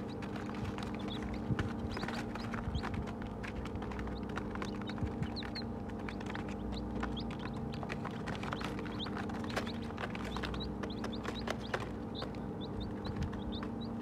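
Baby chicks peeping in many short, high chirps, mixed with frequent light taps of beaks pecking feed off paper, over a steady low hum.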